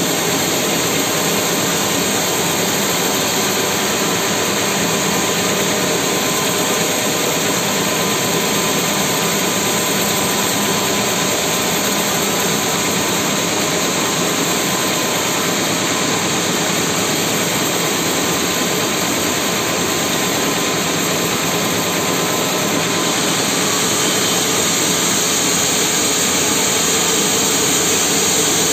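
Sawmill band saw running steadily and cutting lengthwise through a large mahogany log, a continuous dense noise of blade and machinery, a little sharper in the last few seconds.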